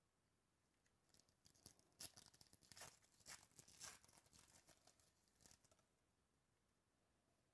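Foil wrapper of a trading-card pack being torn open and crinkled: a quiet crackling rustle that starts about a second in and stops about six seconds in.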